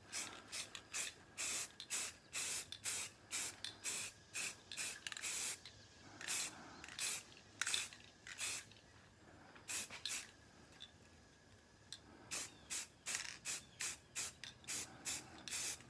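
Rust-Oleum 2X aerosol spray can hissing in short spurts, about two a second, as a light coat of flat grey paint goes on. The spurts thin out for a few seconds about nine seconds in, then pick up again.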